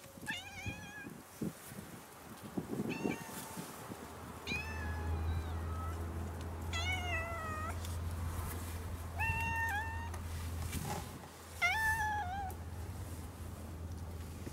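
A tabby cat meowing repeatedly, about six meows a second or two apart, some dropping in pitch at the end, over a low steady hum.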